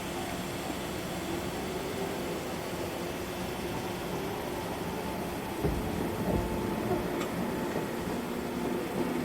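JR 103 series electric train running past a railway level crossing: a steady hum with held tones, and a low rumble that comes in and grows louder about five and a half seconds in.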